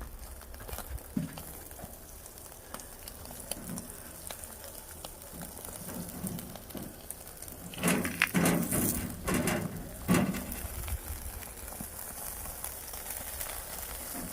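Firewood fire crackling under grilling mackerel, with a fine sizzle and scattered small pops. A couple of louder sounds come a little past the middle.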